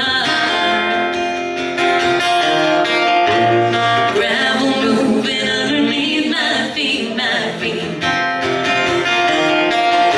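Live country song: a woman singing lead over strummed acoustic guitar.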